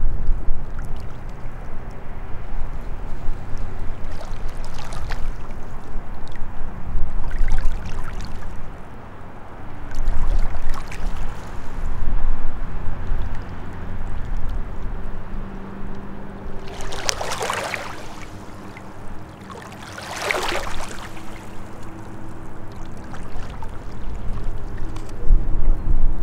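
Small lake waves lapping and gurgling over shoreline rocks in shallow water, with two louder splashes about two-thirds of the way through, over a steady low rumble.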